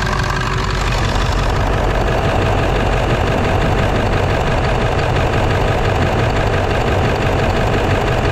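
Early-1999 Ford 7.3 Power Stroke V8 turbo-diesel idling steadily on a cold start. It has just been buzz-tested cold, which the owner says knocked two sticky injectors loose for now.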